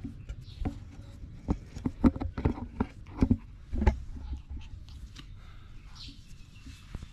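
Baby otters scuffling at close range: a run of irregular sharp knocks and taps, loudest between two and four seconds in, then a faint high squeak from an otter about six seconds in.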